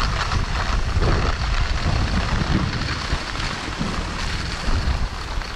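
Wind buffeting the microphone of a moving skier's camera, over the steady scrape of skis running on hard, icy groomed snow.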